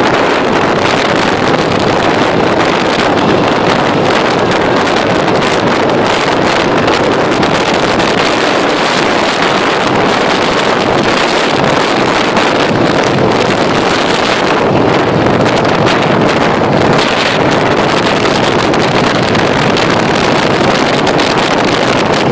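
Wind rushing over the microphone of a Harley-Davidson Softail Crossbones riding at road speed, mixed with its V-twin engine running steadily underneath.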